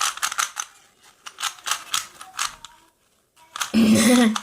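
Rapid plastic clicking and clacking of an original Rubik's brand 3x3 cube turned fast in a speedsolve, its tight out-of-the-box mechanism clacking with each turn. After a brief pause near the end comes a short loud burst with a voice-like hum.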